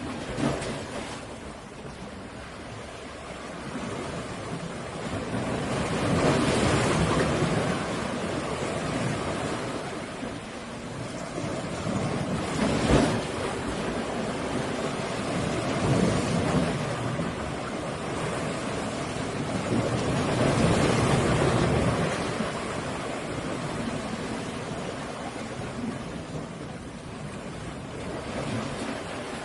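Ocean surf: waves breaking and washing in, the roar swelling and fading every few seconds, with one sharper crash about halfway through.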